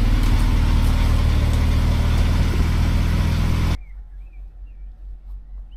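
A car engine running steadily close by. It cuts off suddenly about two-thirds of the way through, leaving quiet outdoor air with a few faint bird chirps.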